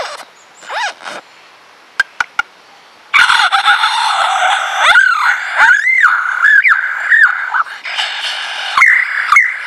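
Superb lyrebird singing. A few short calls and three sharp clicks lead into a loud, dense run of song from about three seconds in, full of rapid rising and falling whistled sweeps.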